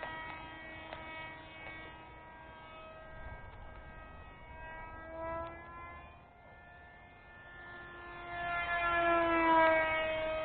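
Propeller and motor of a small flat-foam Sukhoi RC model plane whining in flight, the pitch shifting up and down with the throttle. It fades briefly in the middle, then grows louder near the end and slides down in pitch.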